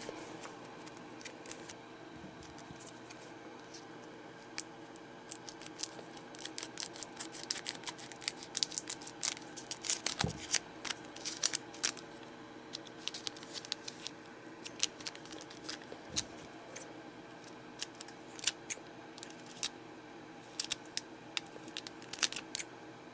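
A foil trading-card booster pack being handled and opened, its wrapper giving many quick, irregular crackles that start a few seconds in.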